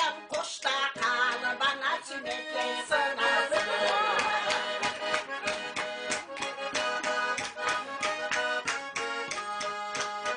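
Garmon, a small diatonic button accordion, playing a folk tune without singing, with hand clapping keeping a steady beat along with it.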